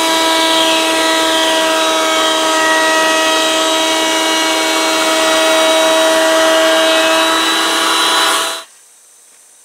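Router running at reduced speed with a 2-inch core box bit, milling a cove profile into a mahogany handle blank: a steady whine over the hiss of the cut. It cuts off abruptly near the end.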